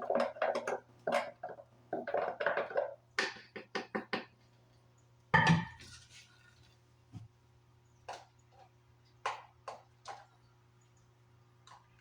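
Kitchen handling noise: a quick run of clicks and knocks from containers and utensils being moved, one louder knock about halfway through, then a few light taps.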